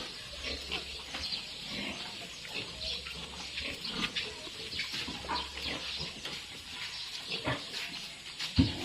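Pigs on a farm grunting and squealing in short, irregular calls.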